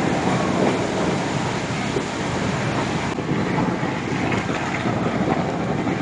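Steady rushing, crackling noise from a train on fire, with flames and electrical arcing on its roof.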